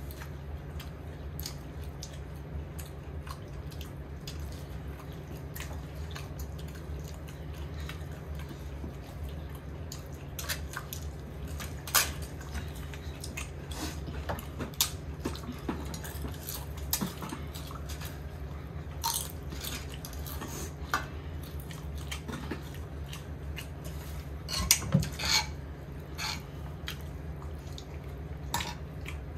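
Meal-time eating sounds: scattered clicks and taps of tableware and chewing, over a steady low hum, with a brief cluster of sharper clinks about 25 seconds in.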